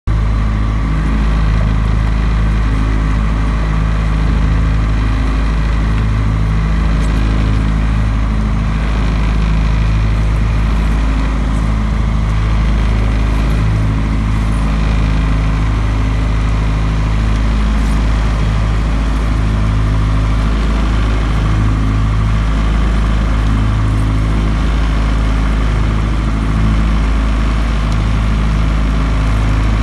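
Fishing boat's engine running steadily: a loud, deep drone with a low throb that swells and fades slightly every second or two.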